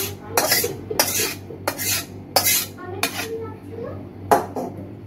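A metal spatula scraping and knocking against the inside of a metal kadai as the cooked dish is emptied into a steel bowl: about seven sharp metallic scrapes and clanks at an uneven pace.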